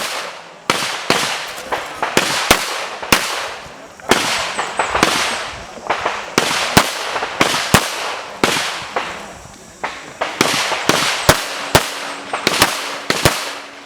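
Handgun shots fired in fast, irregular strings, often in pairs, each sharp crack trailed by a short echo. This is a competitor shooting an IPSC practical-shooting stage.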